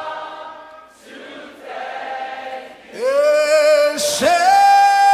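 Congregation singing a cappella fades away. About three seconds in, a single loud voice slides up into a held note with vibrato, breaks off briefly, then swoops up to a long, steady higher note.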